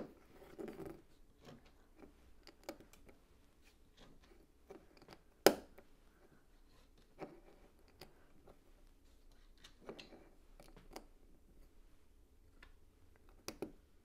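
LEGO plastic pieces being handled and pressed together: scattered small clicks and short rustles, with a sharper click about five seconds in and a pair of clicks near the end.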